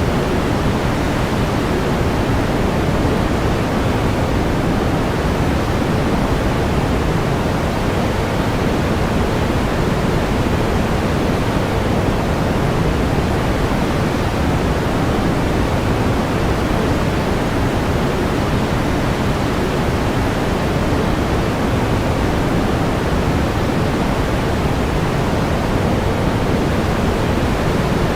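Steady pink noise: an even hiss, fuller in the lows and softer in the highs, unchanging throughout.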